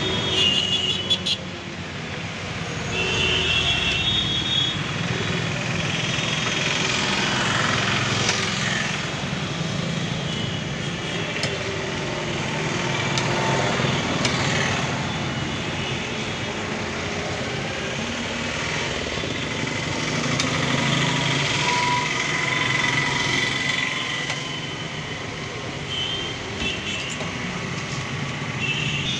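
Steady street traffic noise: motor vehicles running and passing.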